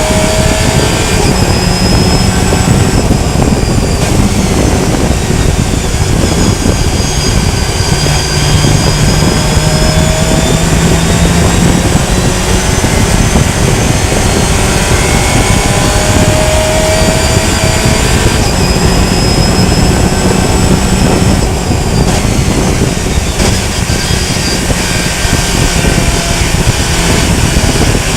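Race car engine at full racing speed, its pitch climbing and dropping as it shifts up and down through the gears several times, under a loud, steady rushing noise.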